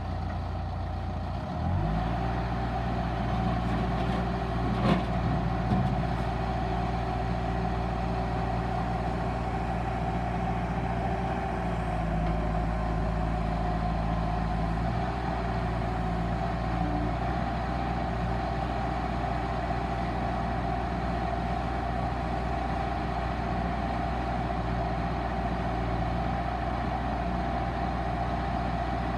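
Bobcat 863 skid steer's diesel engine running. About two seconds in its note changes and gets louder, there is a brief sharp knock around five seconds, and then it runs steadily.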